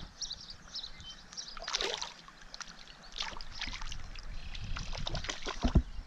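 Creek water sloshing and splashing around a hand as a small northern pike is held in the shallows and let go, in a few short splashes.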